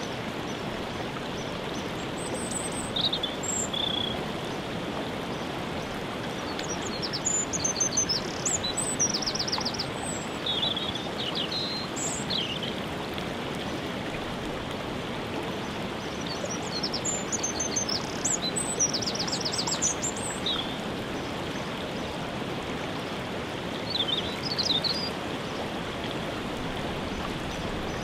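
Waterfall rushing steadily, with small songbirds chirping and giving quick trills above it in several bouts.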